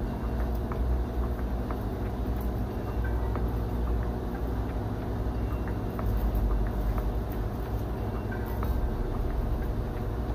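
A steady low rumble, with faint light ticks as seasoning is shaken from a plastic shaker bottle onto raw chicken leg quarters in a foil pan.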